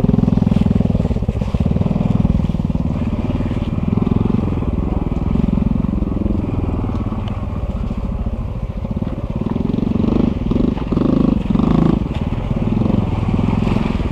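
Honda CT125's single-cylinder four-stroke engine running under way on a dirt trail, its pitch rising and falling with the throttle. It is louder for a couple of seconds near the end.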